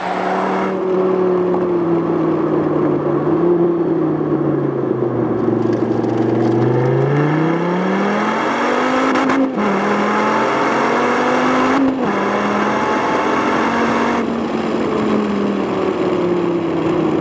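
2013 SRT Viper's 8.4-litre V10 engine driving. Its note eases down for several seconds, then climbs hard with two upshifts about two and a half seconds apart, each one dropping the pitch sharply. It then holds fairly steady.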